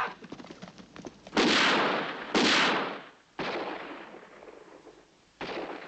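Four gunshots at irregular intervals, each followed by an echo that fades over about a second.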